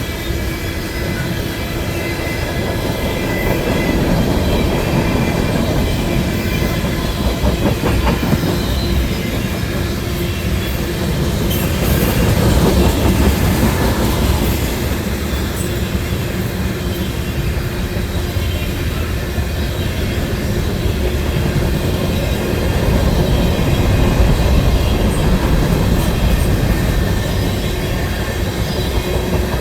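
Long CN freight train rolling past: a steady rumble of steel wheels on rail with clicking over the rail joints and a thin high squeal from the wheels.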